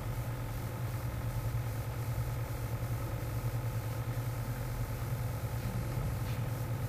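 A steady low hum, even throughout, with fainter steady tones above it: machine or electrical background noise.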